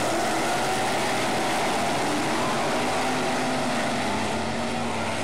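A pack of winged sprint car engines racing together on a dirt oval: a steady, loud din of several engines at once, with pitches that rise and fall as the cars pass.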